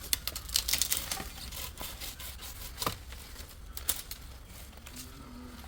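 Leafy tree branches rustling and crackling: a dense run of sharp crackles in the first second, then scattered clicks and snaps.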